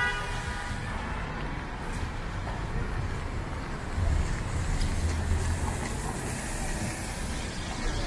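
City traffic on rain-wet streets: cars passing with a steady hiss of tyres on the wet road. A vehicle's engine rumbles low as it passes, swelling for a couple of seconds about halfway through.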